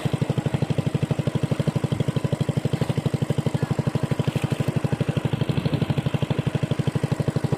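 A small engine running steadily, with an even, rapid beat of about eleven pulses a second.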